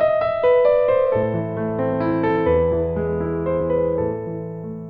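A short excerpt of classical music on piano: a melody over held lower chords, fading out near the end.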